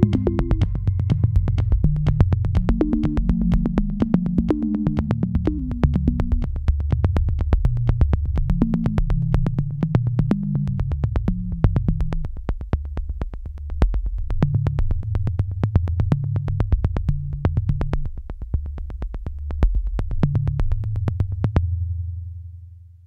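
Electronic background music with a steady beat and a synth bass line, fading out near the end.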